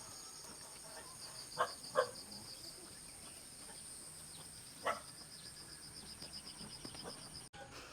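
Insects trilling steadily in a high, rapidly pulsing chorus, with a few short faint sounds over it. The trill cuts off suddenly near the end.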